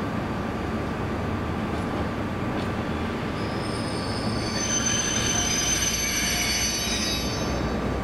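ЭТ2М electric multiple unit rolling slowly past with a steady rumble. About three and a half seconds in, its wheels begin to squeal in several high, steady tones, which fade near the end.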